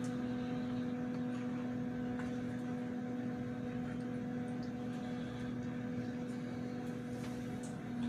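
A steady low electrical hum at one pitch with its overtones, over faint room noise, with a few faint ticks.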